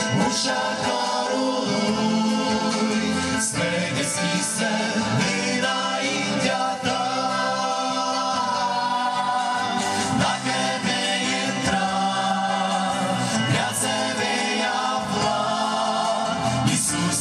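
A mixed group of men and women singing a Christian hymn together into handheld microphones, heard through a PA system.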